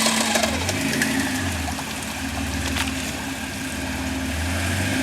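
An off-road SUV's engine running steadily with a slight rise and fall in pitch, over a constant hiss.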